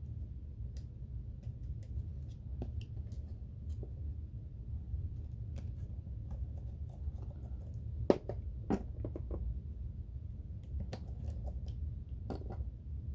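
Scattered small clicks and taps from handling an iPhone's parts and tools during reassembly, over a steady low hum. The two loudest are sharp clicks about eight seconds in, half a second apart.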